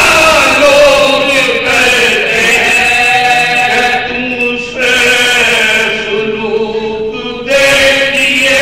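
A group of men chanting a soz, the Shia mourning chant, with a lead voice and supporting voices holding long notes together. It breaks briefly between phrases about halfway through and again before the end.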